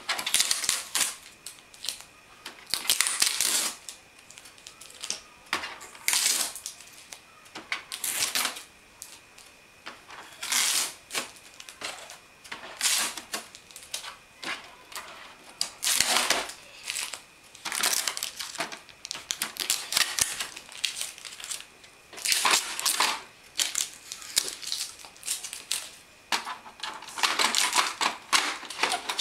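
Blue packing tape being peeled off the plastic casing of an HP Deskjet 3510 printer: a long series of short ripping pulls, one every second or two, with light knocks of the plastic panels between them.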